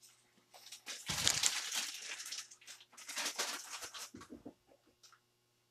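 Plastic piping bag rustling and crinkling as it is handled and refilled with icing, in two spells of about a second each, followed by a few light clicks.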